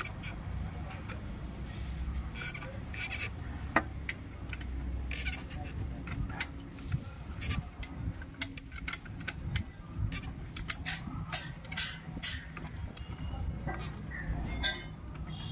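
Irregular metallic clicks and knocks from a wrench turning a VW Polo TDI diesel's crankshaft over by hand, rotating the engine one full turn after a timing belt change to check that the valves don't hit the pistons. A low steady hum runs underneath.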